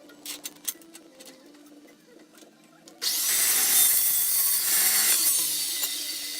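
About three seconds in, a carbide-tipped cold cut saw starts a cut through square steel tubing: a sudden, loud, steady cutting noise that begins to ease off near the end. Before it there are only a few light clicks.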